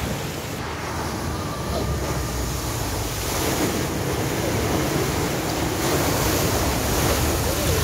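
Floodwater rushing over a deep road ford while a Land Rover Defender ploughs through it, pushing up a bow wave. The churning splash grows louder over the last few seconds, with wind buffeting the microphone.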